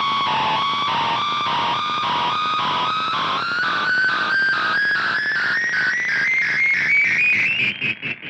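Donner Yellow Fall analog delay pedal self-oscillating with guitar: a single feedback tone glides steadily upward in pitch over pulsing repeats, then dies away near the end.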